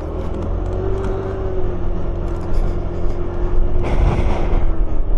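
Kymco 125cc motor scooter engine running with a steady hum and low rumble, growing slightly louder. The hum drops a little near the end, and a short hiss comes about four seconds in.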